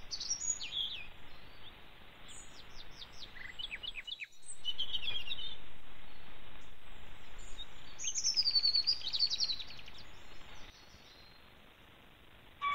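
Wild songbirds calling and singing: short chirps and whistled glides, with a fast trill from about eight to nine and a half seconds in, over a steady background hiss. A short gap in the sound about four seconds in.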